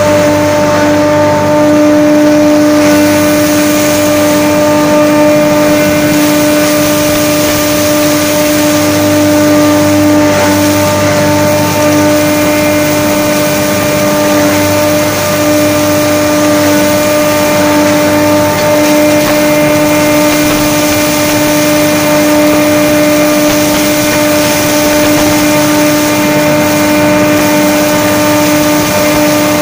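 Straw bale crushing and grinding machine (a rotary cutter tub combined with a hammer mill) running under load as it breaks up a straw bale. It gives a loud, steady machine hum held at one pitch over a constant hiss.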